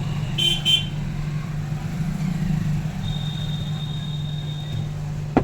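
Steady low mechanical hum, like a small motor or blower running. There are two short bright clicks about half a second in, a thin high whine for about two seconds past the middle, and a sharp click at the end.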